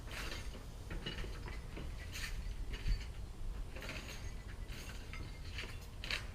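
Scrap metal being handled: light metallic clinks, knocks and rattles at irregular intervals, with one heavier thump about three seconds in.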